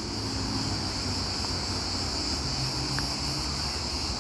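A steady, unbroken high-pitched insect chorus, with a low rumble underneath.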